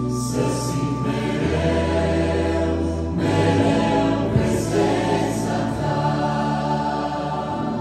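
Mixed men's and women's vocal group singing a Romanian worship song in harmony through a PA, over keyboard accompaniment with sustained low chord notes that change every couple of seconds.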